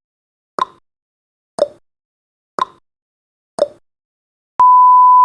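Countdown timer sound effect: a clock tick-tock, one tick a second alternating high and low, four times, then a loud steady beep starting near the end as the countdown reaches zero.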